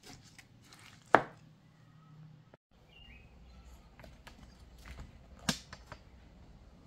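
Handling noise: scattered light knocks and clicks of things being moved about, the sharpest about a second in and again about five and a half seconds in, over a faint low hum. The sound cuts out for an instant about two and a half seconds in.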